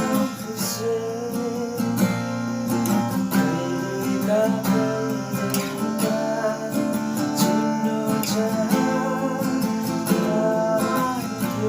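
A song played on strummed acoustic guitar, with a melody line gliding over the chords.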